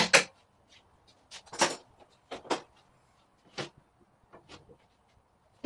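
Woodworking clamps being taken off a glued-up wooden panel: a run of sharp knocks and clacks, several coming in quick pairs, about one every second.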